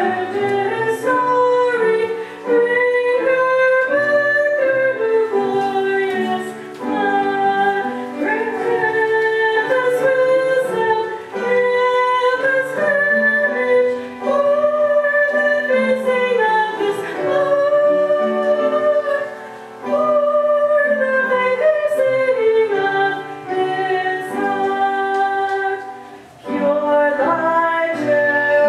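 A woman singing solo, in slow phrases of long held notes with short pauses between them.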